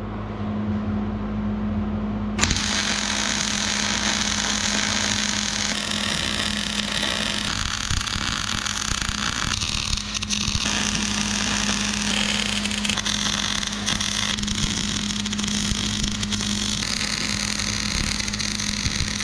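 MIG welder arc crackling and sputtering as steel truss plates are stitch-welded, starting about two seconds in and changing abruptly every second or two as separate short weld runs follow one another. A steady hum sits under it throughout.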